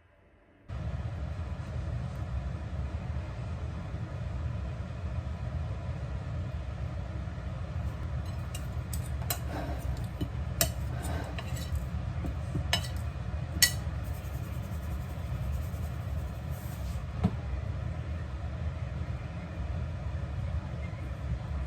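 Light clinks of dishes and glassware being handled, several sharp taps in a cluster partway through, over a steady low hum.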